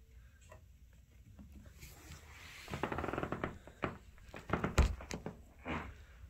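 Two kittens wrestling on a rug and wooden floor: quick scrabbling of paws and claws, a run of rapid ticks, then scattered taps and a thump about five seconds in.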